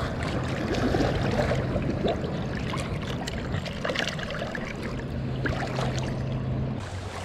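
Shallow lake water splashing and lapping around rocks as hands move about in it, with small scattered splashes and clicks. A low steady hum sits beneath and stops near the end.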